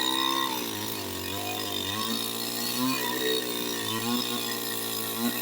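Two-stroke chainsaw running under load. Its pitch sags and recovers roughly once a second as the chain bites into the wood.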